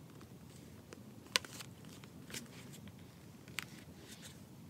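Leather traveler's notebook covers being handled and opened: faint rustling of leather and paper, with a few soft taps and clicks, the sharpest about a second and a half in.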